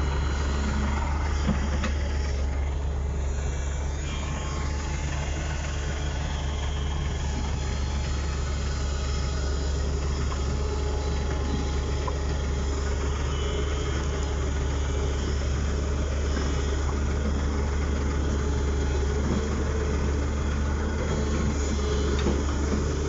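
Diesel engines of a crawler excavator and a bulldozer running at close range, a steady, heavy low drone with no marked revving or knocks.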